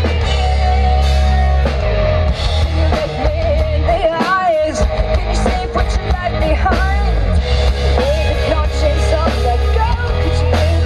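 Live rock band playing loud amplified music: drum kit and heavy bass, with a voice singing over it from about two seconds in.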